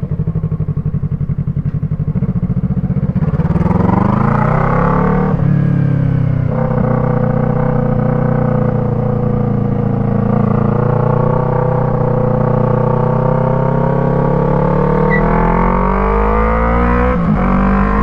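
Yamaha MT-03's parallel-twin engine through an Arashi aftermarket exhaust fitted with a dB killer, ridden on the road: low pulsing at low revs, then revving up with a gear change about five seconds in, pulling steadily with the pitch slowly climbing, and another shift near the end. Still loud and plainly not the stock exhaust, but held in by the dB killer.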